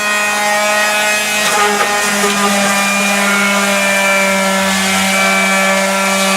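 Electric power sander running steadily on filled and patched exterior walls, a constant motor hum with the rasp of sanding.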